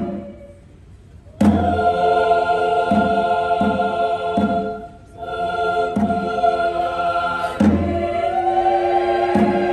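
Choir singing sustained chords, punctuated by drum beats every second or so. The singing stops for about a second near the start and dips briefly around the middle.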